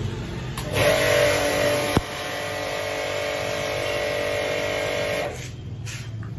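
Ideal Power Tools IDSR210 electric pressure washer (210 bar, induction motor) spraying: the loud hiss of the high-pressure water jet from the gun over the steady hum of the running pump. It starts a little under a second in, with a sharp click about two seconds in, and cuts off about five seconds in when the trigger is released.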